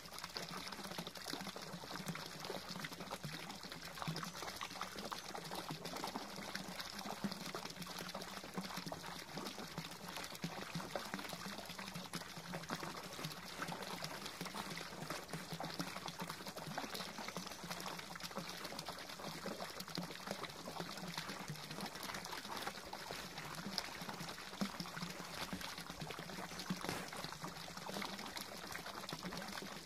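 Garden pond fountain: a jet of water pouring from a pipe and splashing steadily onto the pond surface.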